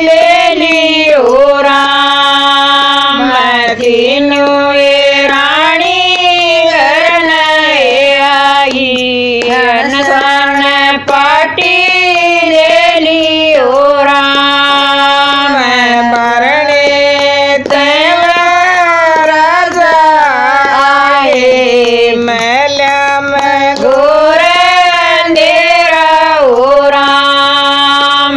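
Women singing a Haryanvi devotional bhajan, a slow melody of long held notes that rise and fall.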